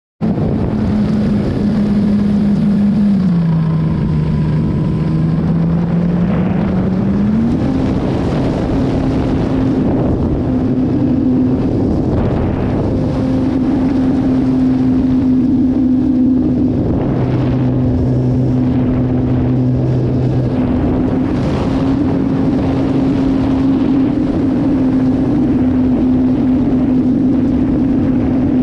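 Radio-control airplane's engine and propeller in flight, heard close up from the on-board camera, with wind rushing over the microphone. The engine's drone dips in pitch about three seconds in and climbs back a few seconds later, then holds fairly steady.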